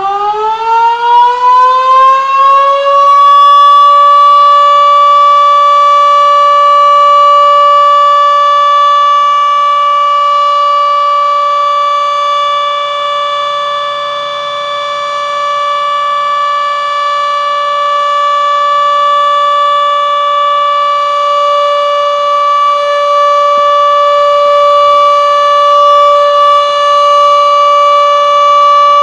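Denver outdoor warning siren sounding a test: it winds up, rising in pitch over the first three seconds, then holds one steady loud tone, fading slightly and swelling back midway.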